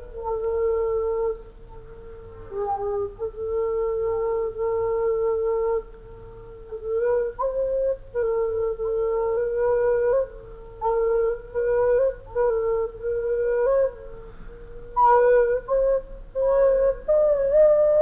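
Slow solo flute melody of long held notes that step up and down in pitch, with short breaks between phrases and a climb to higher notes near the end.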